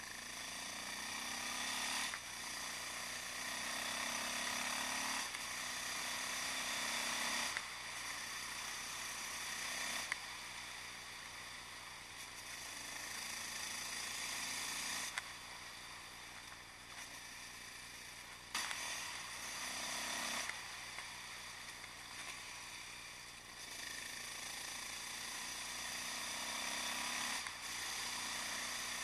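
Yamaha XT660X single-cylinder four-stroke engine with a Mivv exhaust under way, revving up and dropping back sharply several times, with a steady rush of wind.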